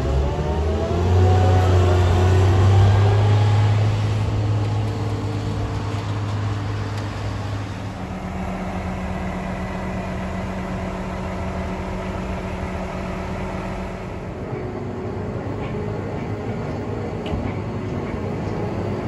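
Combine harvester engines running: first a Claas combine driving off along the road with a loud low drone, then after about eight seconds the steady engine of a New Holland CX combine idling.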